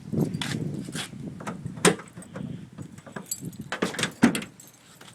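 A bunch of car keys jangling in the hand, with irregular clicks and knocks; the two sharpest strikes come about two seconds in and a little past four seconds in.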